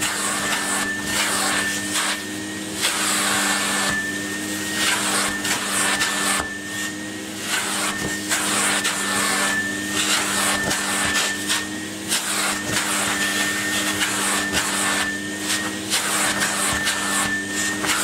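Numatic tub vacuum cleaner running with a steady motor hum and a thin high whine. Its hose nozzle is worked over a cloth filter, so the rush of air swells and dips every second or two as the nozzle moves on the fabric.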